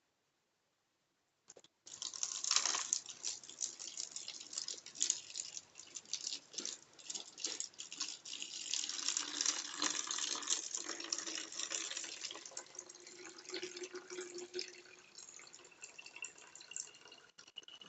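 Borax slime-activator solution being poured into a container, a splashing, trickling pour that starts about two seconds in and tapers off near the end.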